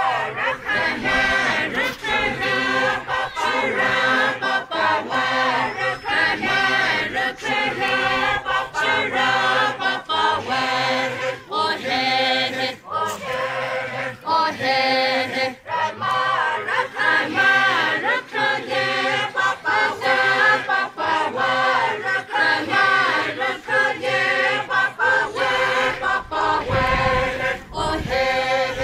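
A group of voices singing a traditional folk chant together for a dance, phrase after phrase with short breaks between.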